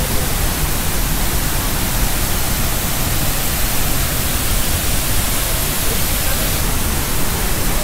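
Steady loud rush of a large waterfall in heavy, forceful flow, heard close to the falls.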